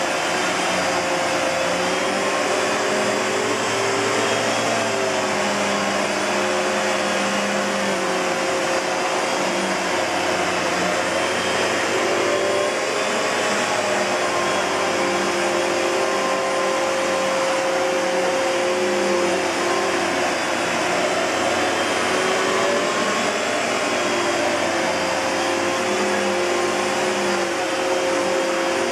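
Kenmore Progressive canister vacuum with a SIP Cinderson blower motor running steadily. It gives an even rushing whine with one constant tone and lower tones that waver slightly.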